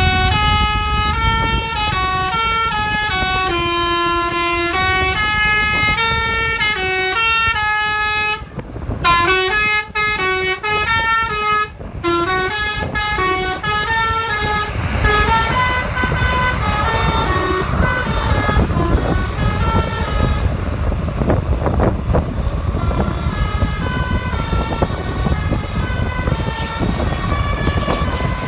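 Bus 'basuri' telolet horn, a set of electric air-horn trumpets playing a melody of stepping notes. After a short break about eight seconds in, another tune starts and fades after about fifteen seconds into a steady vehicle rumble, with the horn tune faint underneath.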